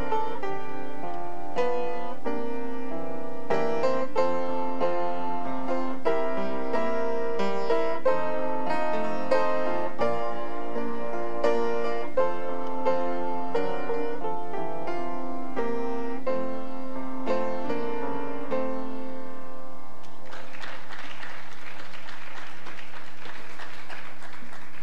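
Upright piano played solo, a gospel tune in chords and melody with each note ringing and dying away; the playing ends about 20 seconds in and is followed by a few seconds of even noise.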